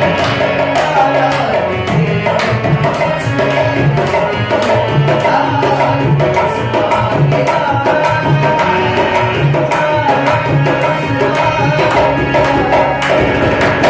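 Dholak playing a steady, fast rhythm under an instrumental melody, a wordless interlude in a Hindi film song performed live.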